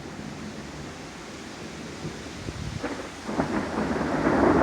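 Steady rain, then thunder starting to rumble about three seconds in and building louder toward the end.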